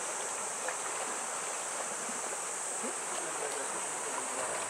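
Steady outdoor ambience: an even wash of wind and water noise with a constant high-pitched hiss, and a few faint short sounds.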